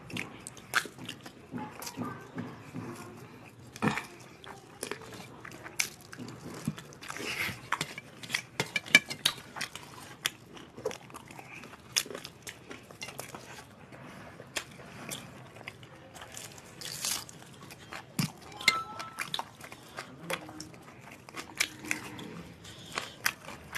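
Close-up eating sounds: chewing and lip-smacking as rice and chicken curry are eaten by hand, with many short, irregular clicks of fingers and food against steel plates.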